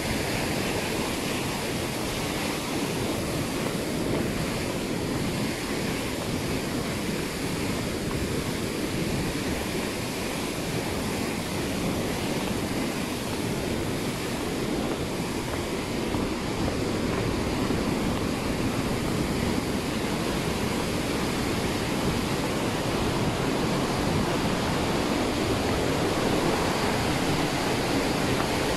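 Steady rush of water falling from a tall waterfall, an even wash of noise that grows a little louder about halfway through.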